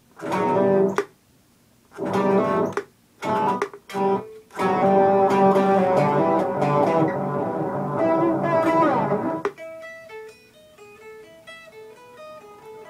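Electric guitar played through a floor board of effects pedals: chords struck in short bursts, then a long held chord whose pitch slides downward near the end of it. After that come quieter single notes picked one after another.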